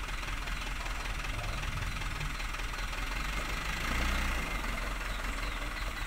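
Dump truck's engine running at idle while the tipper bed is lowered after dumping its load, growing briefly louder about four seconds in.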